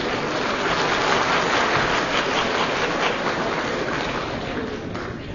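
Opera-house audience applauding at the end of an aria, a dense clapping that starts to die away near the end. It is heard through an old band-limited broadcast recording.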